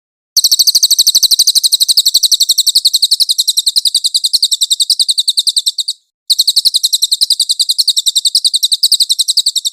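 Cililin bird song: a loud, very fast trill of repeated high chirps, in two long runs with a short break about six seconds in.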